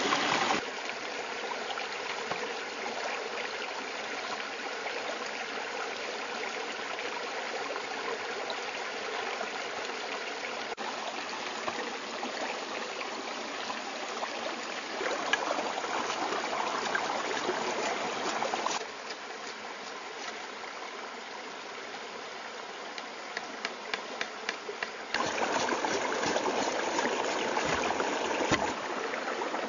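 Stream water running steadily, its level shifting at several cuts. In two louder stretches, about halfway through and near the end, rapid clicks sound over the water.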